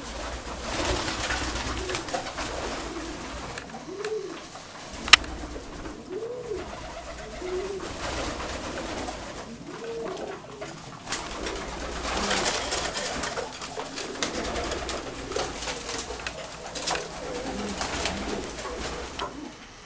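Saxon Lapwing and double-crested Saxon Shield pigeons cooing over and over, each coo a low call that rises and falls. Rustling noise runs underneath, and one sharp click sounds about five seconds in.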